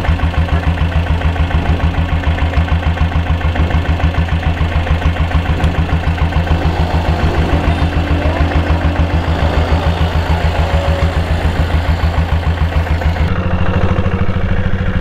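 Royal Enfield Bullet's single-cylinder diesel engine idling with a steady, regular chugging, about seven beats a second. Near the end it changes to the engine running on the move.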